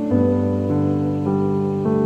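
Background music on a keyboard, with sustained chords that change every half second or so.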